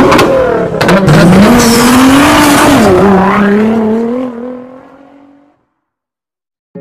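Sports car engine revving hard with tyre squeal. The engine note climbs, dips about three seconds in, then holds and fades out about five seconds in.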